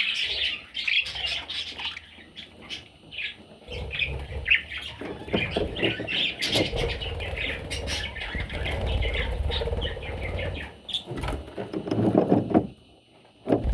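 Pet budgies chirping and chattering in quick short calls, with a stretch of low rumbling noise from about four to eleven seconds in.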